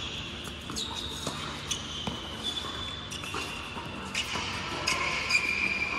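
Tennis doubles rally on an indoor hard court: a string of sharp pops from the ball being struck by rackets and bouncing on the court, echoing in the hall, with high ringing squeaks after some of the hits.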